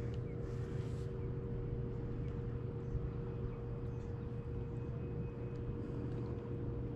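Steady low mechanical hum with a thin, higher steady tone over it, unchanging throughout; a few faint ticks near the start.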